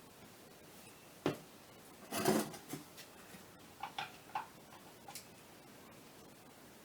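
Scattered sharp clicks and light knocks from handling objects: one click about a second in, a louder short clatter around two seconds, then a few quick clicks a little later.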